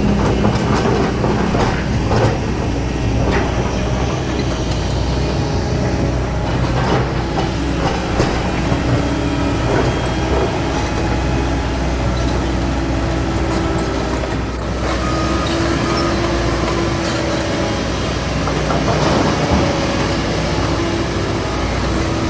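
Doosan DX225LCA excavator's diesel engine running steadily under load, with a shifting hydraulic whine and scattered clanks and knocks from the working machine.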